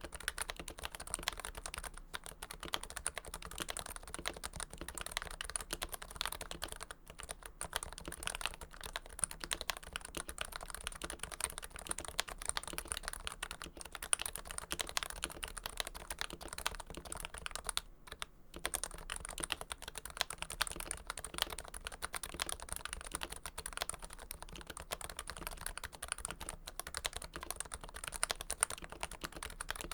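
Continuous fast typing on a Topre keyboard, a Realforce Hipro plate in a first-generation Realforce TKL case, its electro-capacitive switches lubed with Krytox 105. The keystrokes come as a dense stream of short clicks, with brief pauses about 7 and 18 seconds in.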